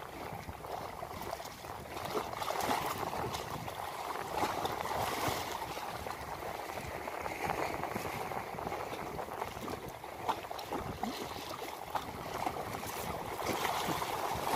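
Small sea waves splashing and lapping against a concrete seawall, a steady wash of water that swells and eases.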